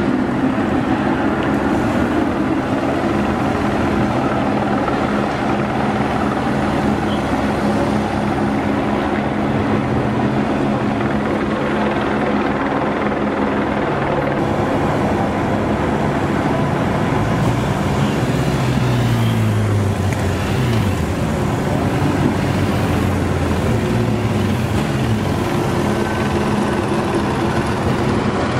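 Police motorcycle engines running on a city street under the steady drone of a helicopter overhead. A little past the middle, one engine's pitch slides down several times as it passes or slows.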